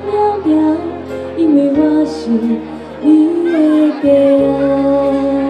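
Woman singing a slow melody into a microphone over live band accompaniment, with long-held low bass notes underneath.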